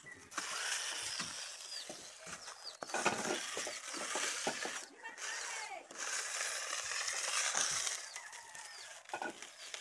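Cloth pad rubbed back and forth over the cracked glass face of a solar panel, a dry scraping hiss in long strokes of about two seconds with short breaks between them.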